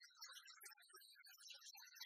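Near silence, with faint, scattered, short high-pitched blips.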